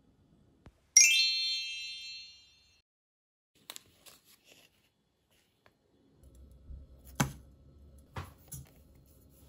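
A bright chime sound effect rings once about a second in and fades away over about two seconds. From about six seconds in, sugar is spooned into a pot, with a few light knocks of the spoon against it.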